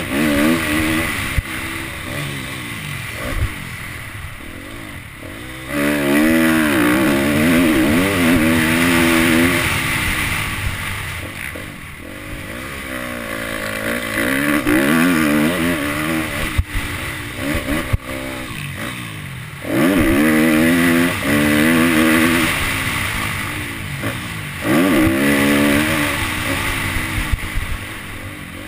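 Motocross dirt bike engine being ridden hard: the revs climb and drop again and again through gear changes, with sudden bursts of throttle about six, twenty and twenty-five seconds in. A steady rush of wind noise runs underneath.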